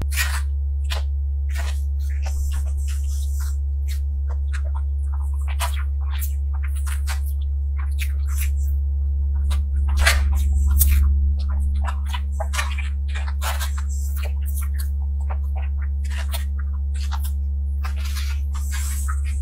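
Close-miked eating sounds: a fork cutting and scraping a soft cream cake on a plastic tray, and short clicks of chewing, over a steady low electrical hum.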